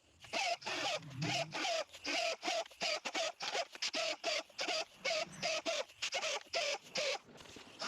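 Die grinder with a burr bit sharpening the cutters of a chainsaw chain, in short rapid grinding strokes about three a second with a wavering whine.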